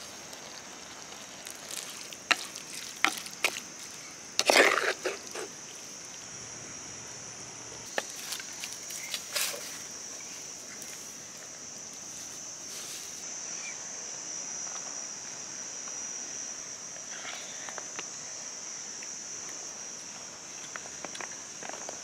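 Scattered clicks and knocks of food being mixed and spooned from a clay pot, loudest a few seconds in, over a steady high-pitched insect drone.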